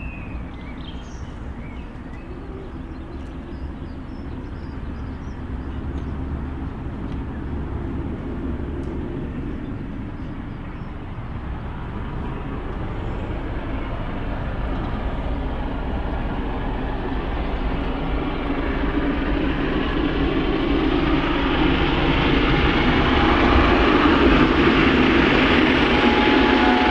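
Mainline steam locomotive approaching with a heavy train, its exhaust and running noise building steadily louder as it nears.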